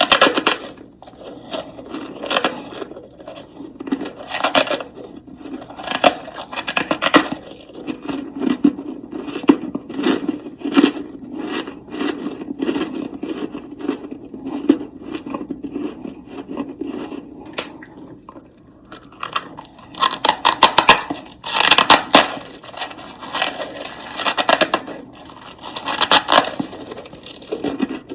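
Powdery freezer frost crunching and scraping close to the microphone, in irregular bursts of dense crackling.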